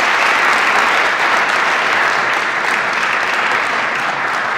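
Lecture audience applauding steadily, easing off a little toward the end.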